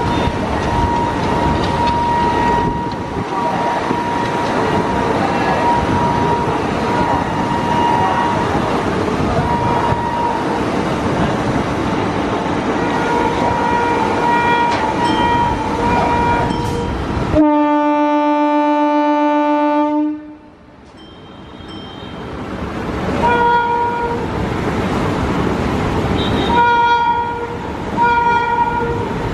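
Electric trains running at speed, a WAP-7 electric locomotive sounding its horn in repeated blasts over the running noise. About seventeen seconds in, the running noise drops away under one loud held horn note lasting about two and a half seconds. The noise then builds again, with more horn blasts near the end.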